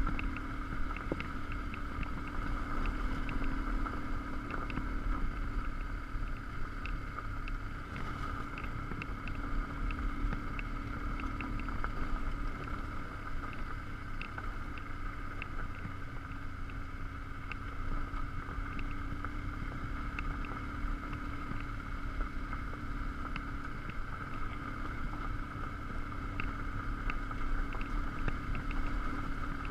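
BMW R1150GS Adventure's boxer-twin engine running steadily while the bike rides over gravel, under a low rumble of wind and road noise on the camera microphone, with scattered small ticks.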